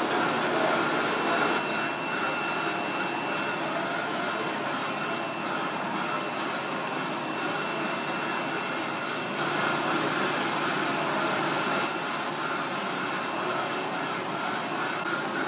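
Steady machine-like background noise, such as ventilation or kitchen equipment, with a faint thin high whine held through much of it.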